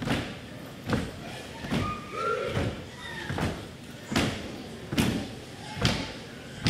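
Kapa haka group stamping and slapping in unison, a steady beat of heavy thuds a little over once a second. Short chanted calls sound faintly between the beats.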